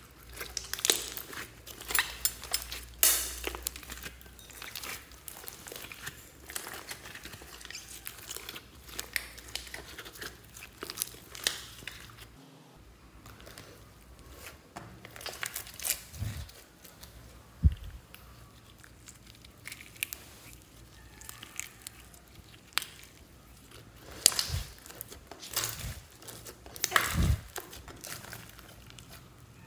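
Hands kneading, stretching and pressing a large lump of slime mixed with clay and foam beads, giving irregular sticky crackles and clicks, with a few louder snaps as it is pressed and pulled apart.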